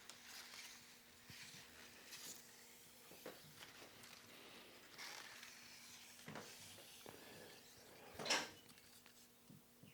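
Near silence in a small room, broken by faint scattered clicks and one louder short knock about eight seconds in.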